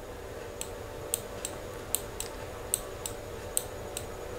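Light, sharp clicks from a computer being worked to scroll a lesson slide: about a dozen at an uneven two or three a second, over a faint steady hum.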